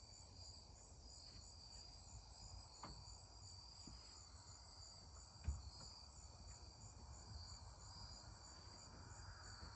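Faint evening chorus of crickets or similar insects, a steady high trill with an even pulsing rhythm. A soft knock comes about halfway through.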